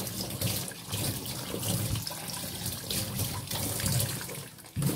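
Tap water running into a kitchen sink and splashing over hands as they wash a plastic bag, dipping briefly near the end.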